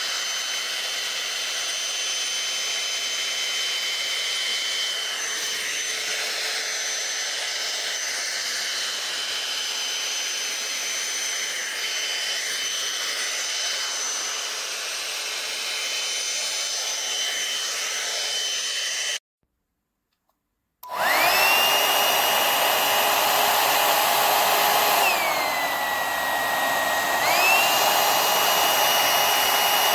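A YAPOY high-speed hair dryer runs with a steady rush of air and a high motor whine. About two-thirds of the way in it cuts out for a second and a half, then comes back louder, its whine gliding up as the motor spins up. A few seconds later the whine drops in pitch, then climbs back up.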